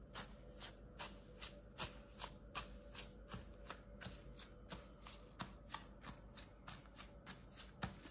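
Fingers pressing and kneading slime covered in gold leaf, giving short crisp crackles at about two to three a second.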